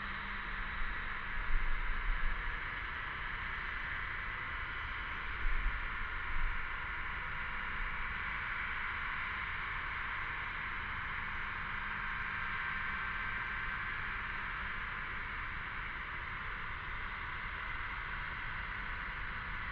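Steady, unbroken chorus of many cicadas buzzing together, a high-pitched drone that holds level throughout. Brief low rumbles at about 2 and 6 seconds in.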